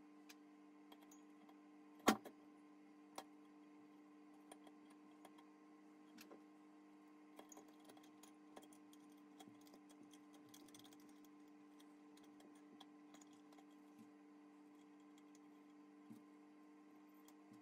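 Sparse small clicks and taps of metal parts being handled as the Denso smog pump's rotor and vanes are fitted into its aluminium housing, with one sharp knock about two seconds in. A steady faint hum runs underneath.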